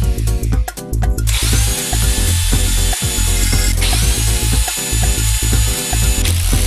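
Bosch electric drill running, its motor whine rising and then holding steady about a second in and again near the middle, over background music with a heavy repeating beat.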